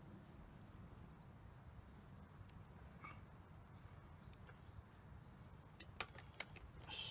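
Near silence: faint outdoor ambience with a low rumble, and a few light clicks shortly before a brief hiss near the end.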